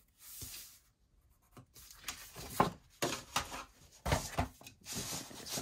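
A pencil drawing a short line on cardstock, then the stiff card being picked up and handled: rustling, with several sharp knocks and taps as it is moved about on the work surface.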